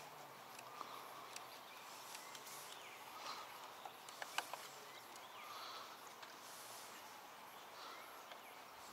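Quiet lakeside ambience with faint, scattered bird chirps and a couple of light clicks about four seconds in.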